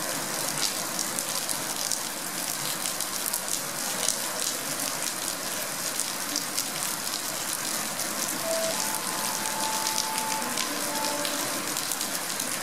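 Heavy rain falling, a steady hiss with the fine patter of drops. A few faint short tones come through it about two-thirds of the way in.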